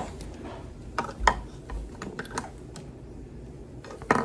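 Scattered light clicks and taps of makeup brushes and lipstick tubes being set into a vanity's desktop organizer, with a louder knock near the end.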